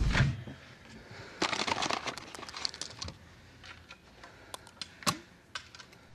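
A loud rumble cuts off abruptly at the start, leaving a quiet run of small clicks, rattles and taps. They are busiest in the first three seconds, with scattered sharp ticks after that and a louder click about five seconds in.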